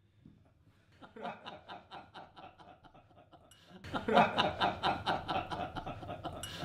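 A group of men laughing and chuckling together, faint at first, then suddenly loud and close about four seconds in.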